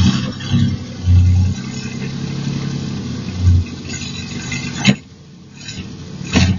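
IKA Torino's straight-six engine running and being blipped, swelling louder several times in the first few seconds and once more mid-way. Two sharp cracks are heard near the end, after which the engine runs more quietly.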